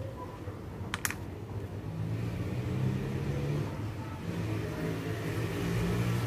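A motor vehicle engine running in the background, its low hum growing louder and shifting in pitch from about two seconds in. Two sharp clicks come about a second in.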